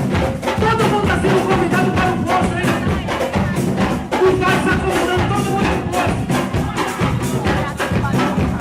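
Loud music with a steady, fast beat and a melodic line over it.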